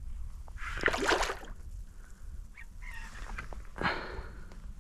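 Water splashing twice, a longer splash about a second in and a shorter one near the end, over a steady low rumble.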